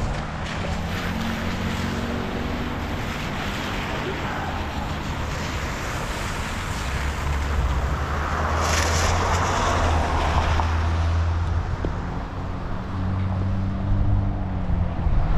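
Wind rushing over a helmet-mounted camera's microphone during a bike ride, with motor-vehicle traffic going by: a low engine hum swells about halfway through, together with a hissing rush, and comes back near the end.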